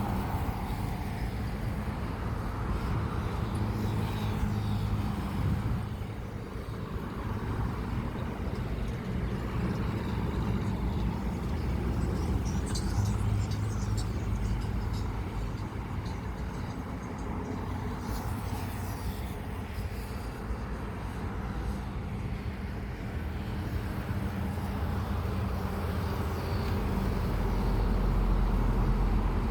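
Steady low engine rumble with a droning hum, swelling louder in the deepest range near the end.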